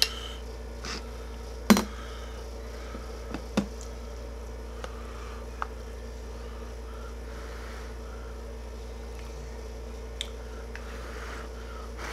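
Eating noodle soup: a few sharp clicks of chopsticks and a metal spoon against a glass bowl, the loudest about two seconds in, with soft eating noises between them, over a steady low hum.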